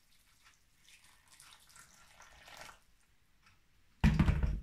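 Faint watery sloshing as a spoon stirs raisins soaking in just-boiled water in a ceramic bowl, then a sudden loud thump about four seconds in.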